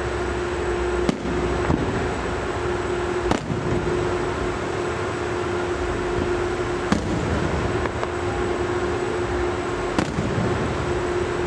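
Fireworks bursting: about five sharp separate bangs at irregular intervals, over a steady background rumble with a low hum.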